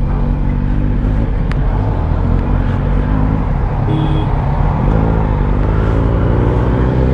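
Kawasaki Ninja ZX-10R's inline-four engine running steadily at low revs as the bike pulls away slowly.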